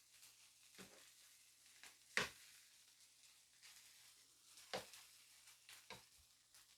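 Eating sounds: about five short, sharp taps of utensils against dishes, the loudest about two seconds in and two close together near the end, with faint eating noise between them.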